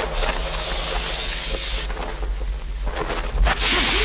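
Film sound effects: a steady low rumble under a hissing, whooshing noise that dies down midway, a few sharp hits with the loudest about three and a half seconds in, and the hiss swelling back up near the end.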